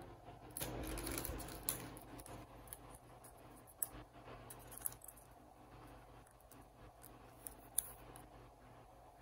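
Faint rustling and a few sharp, light clicks of trading cards and plastic card holders being handled.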